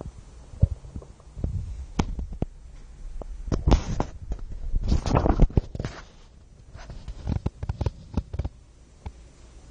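A pet's stomach rumbling and gurgling in irregular bursts with sharp clicks, loudest from about three and a half to five and a half seconds in.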